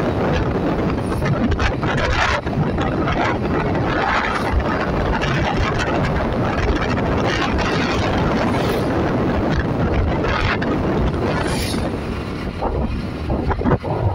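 Steady rushing road and wind noise from a vehicle driving along a paved road, with wind buffeting the microphone.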